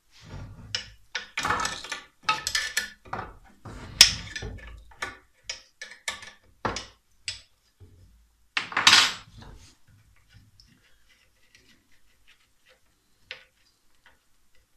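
Clicks, knocks and scraping of a screwdriver and fingers working in the plastic terminal box of an old bench grinder's motor to take out its capacitor. A sharp click comes about four seconds in and a longer rattle near nine seconds, then only a few faint ticks.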